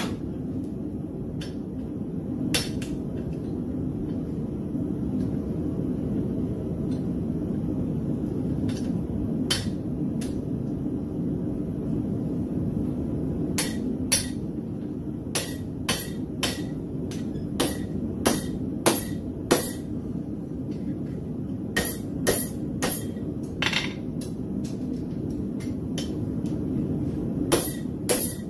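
Hand-hammer blows on hot steel against an anvil, as a split railroad spike is hammered open into a cross. A few scattered strikes at first, then runs of quicker blows from about halfway on, over a steady low background rumble.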